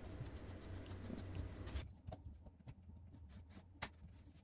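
Faint handling sounds of hands tightening slip-joint nuts on a plastic sink drain pipe and P-trap: a few soft, scattered clicks over a low room hum.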